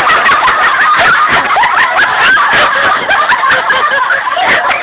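A roomful of people shouting and shrieking excitedly all at once, loud, with many sharp irregular clicks through it.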